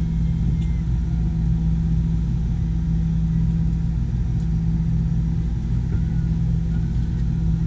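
Steady low mechanical hum with a droning tone, unchanging throughout, inside an enclosed Ferris wheel gondola.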